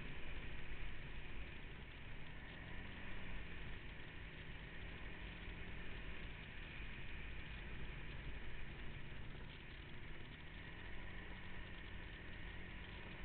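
Off-road vehicle engine running at low, fairly steady revs, with a slight rise and fall in pitch about three seconds in.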